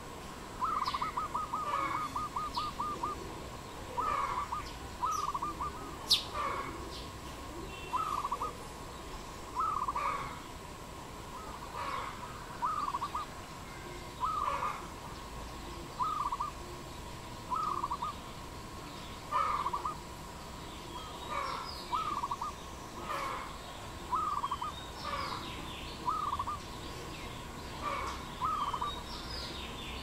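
Dove calling: short phrases of soft cooing notes repeated every one to two seconds, with a quick run of about ten notes near the start. Thin, higher chirps from other small birds come in between, over a faint steady tone.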